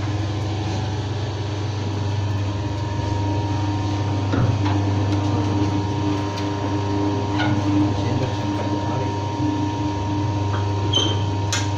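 Electric fish bone separator machine running with a steady motor hum as split fish are fed through it. A few light knocks come through, and there is a sharp click near the end.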